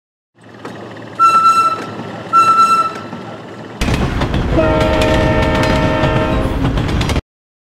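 Train sound effects: a low hum with two short high toots about a second apart, then a train running by with clattering wheels and a long horn blast of several notes. It all cuts off abruptly.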